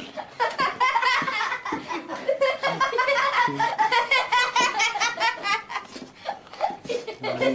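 A person laughing hard in quick, high-pitched bursts.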